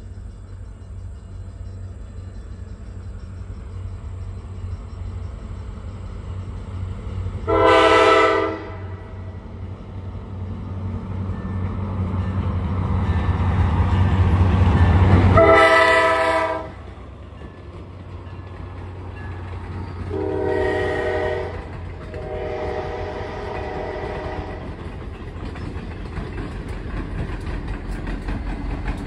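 Mass Coastal diesel locomotive passing with its engine rumble building, sounding a multi-note air horn in four blasts, the last held longest. The rumble drops off sharply after the second blast, and train noise runs on steadily after that.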